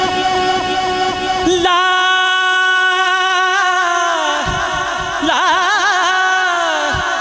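A man's voice singing a naat, holding one long note and then breaking into quick wavering ornaments about halfway through. A low rumble sits under the first second and a half and then stops.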